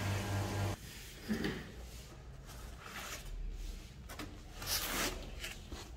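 A steady low hum cuts off under a second in. It is followed by quieter scattered rustles and brief scrapes as a hand handles the plastic-film-wrapped machine in its foam-lined wooden crate.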